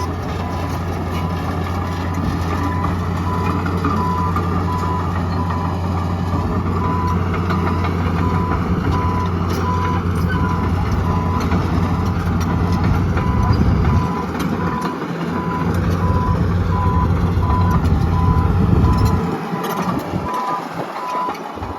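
Komatsu D41P-6 crawler dozer's diesel engine running under load as the machine pushes dirt and concrete. A back-up alarm beeps steadily at one pitch throughout. The low engine sound dips briefly near the middle and again near the end.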